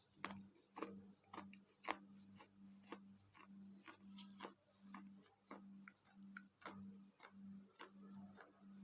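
Faint, crisp crunches of water-soaked baked clay being chewed, a few sharp cracks a second. A low hum pulses steadily underneath.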